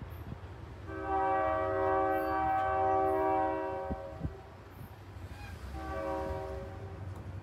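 Locomotive multi-chime air horn sounding a chord twice: a long blast of about three and a half seconds, then a shorter one of about a second.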